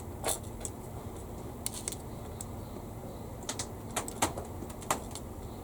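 Irregular light clicks and taps of small plastic scale-model kit parts being handled and pressed together, the loudest a little after four seconds in.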